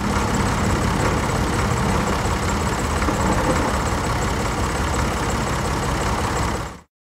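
Tractor engine running steadily. It starts abruptly and cuts off suddenly near the end.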